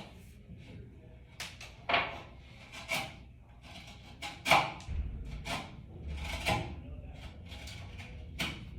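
Sharp clacks and knocks, about five of them with the loudest near the middle, as trimmed Connectrac raceway pieces are handled and pressed into place, with a low rumble in the second half.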